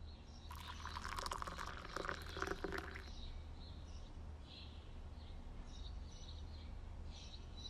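Tea being poured into a glass for about two and a half seconds, starting about half a second in. Faint birds chirping follow.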